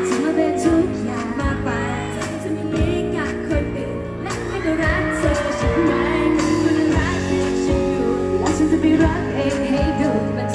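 Thai pop song performed live by a girl group: female vocals sung into microphones over a backing track with a steady beat.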